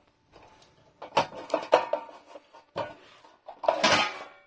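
Metal parts clinking and knocking in a series of short clicks and clatters as a receiver's casing and screws are handled during disassembly.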